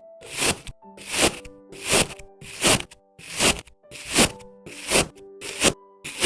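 A regular crunching, scraping stroke on an object, about eight strokes in an even rhythm, each swelling and fading, over soft background music with long held notes.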